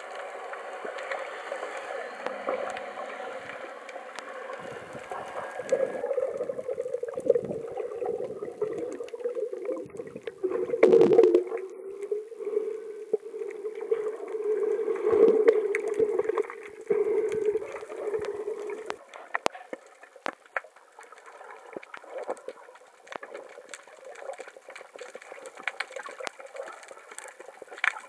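Muffled underwater water noise picked up by a submerged camera: uneven gurgling and rushing, with a loud surge about eleven seconds in, then quieter with scattered small clicks.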